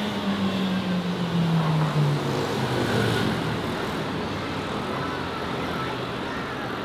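Road traffic: a vehicle passes close by, its engine note falling in pitch as it goes past and loudest about two seconds in, over a steady haze of traffic noise.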